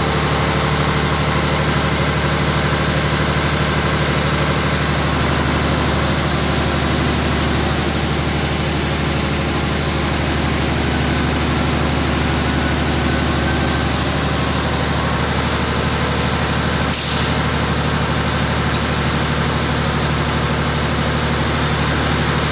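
Diesel engine of a Wirtgen 1000C cold milling machine running steadily, with a short hiss about three-quarters of the way through.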